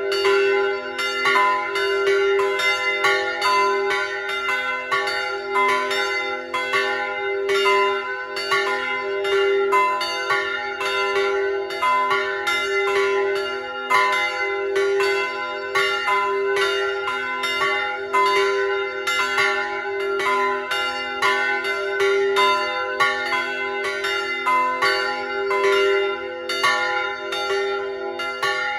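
Three church bells swinging and ringing together in full peal: bells tuned to c'', f'' and f-sharp'', one of them cast steel, with their clapper strikes falling thick and overlapping with no pause.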